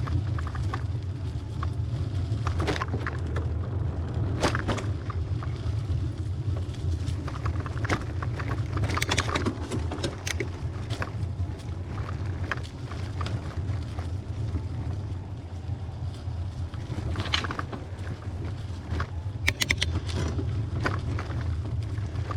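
Trek hybrid bicycle ridden over a rough dirt trail: a steady low rumble of wind and riding noise on the microphone, with irregular clicks and rattles from the tyres and frame over bumps.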